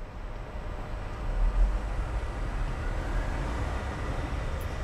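SBB Re 460 electric locomotive hauling passenger coaches through the station: a low rumble of wheels on rails and traction noise that grows louder about a second in and then holds steady.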